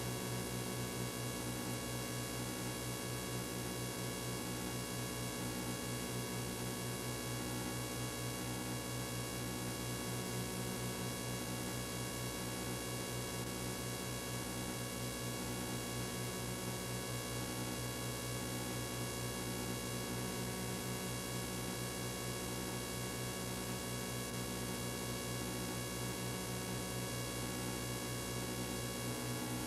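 Steady electrical hum with many overtones, under a hiss of noise and no other sound: the noise floor of an old analogue video recording with no programme audio on it.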